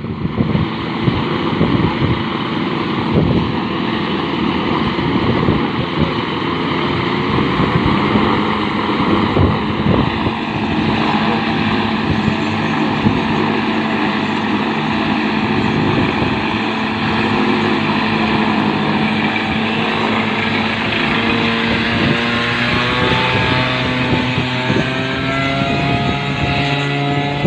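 Motorcycle engine driving the propeller of a homemade light aircraft, running steadily; over the last few seconds its pitch climbs as the engine speeds up.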